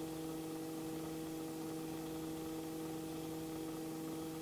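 Robinson R44 helicopter in level flight: a steady, faint droning hum made of several fixed tones over a light hiss, unchanging throughout.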